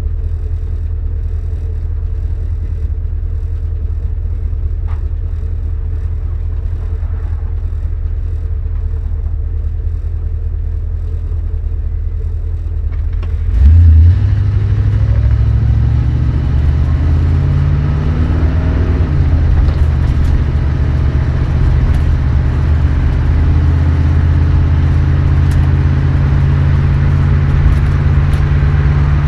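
1973 Dodge Dart's 318 V8 running steadily, then about halfway through pulling away under load, its pitch rising for a few seconds and dropping back as the 904 automatic transmission shifts. The engine then runs on steadily, louder than at the start.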